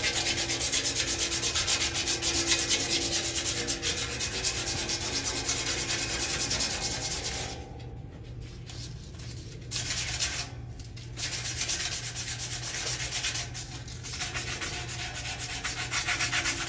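A strip of abrasive cloth is drawn quickly back and forth around a metal tube of the cart frame, shoe-shine fashion, scrubbing scale off the steel before powder coating. The rasping stops for about two seconds around the middle, then resumes in shorter bouts with brief breaks.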